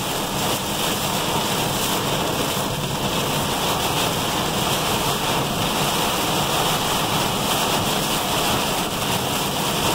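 Heavy rain pelting the windshield and cab of a moving truck, heard from inside the cab as a steady, dense rush.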